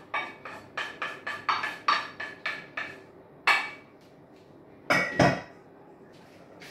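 A spoon tapping and scraping out a small metal saucepan of melted butter over a mixing bowl. A quick run of sharp, ringing metallic taps comes about four a second for roughly three seconds, then a single tap, then a couple of heavier knocks about five seconds in.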